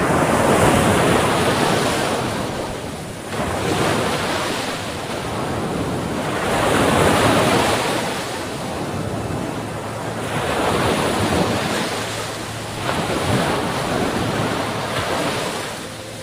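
Sea waves breaking on the shore, the surf swelling and ebbing about every three to four seconds.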